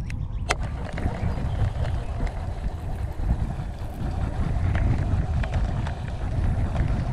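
Wind rumbling on the microphone on a small boat on open water, with a single sharp click about half a second in.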